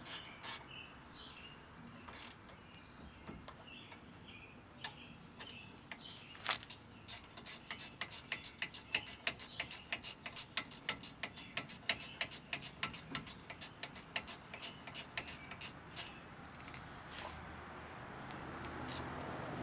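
Ratcheting box-end wrench clicking as it runs down the brake caliper bolts, a fast run of about four clicks a second through the middle of the stretch, with a few scattered clicks before it.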